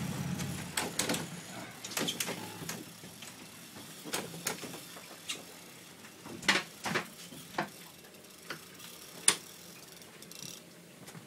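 Fishing reel clicking as the rod is worked against a fish: sharp, irregular ratchet clicks, roughly one a second, with a loud one near the end.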